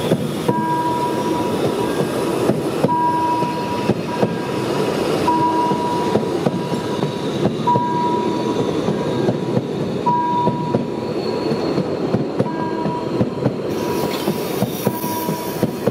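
Train of 750 mm narrow-gauge passenger coaches rolling past close by: a steady rumble with wheels clicking over the rail joints. A short high tone repeats about every two and a half seconds.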